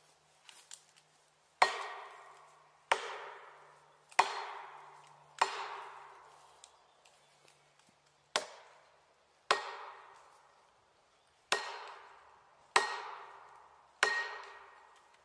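Nine sharp, ringing hammer blows on a felling wedge driven into the back cut of a tree, about one every 1.2 seconds with a longer pause midway. Each strike rings briefly and dies away over about a second.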